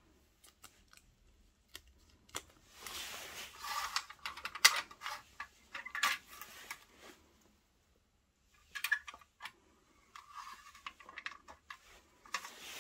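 Thin clear plastic sleeve and zip bag rustling and crinkling as they are handled, in two stretches, with scattered light taps and clicks.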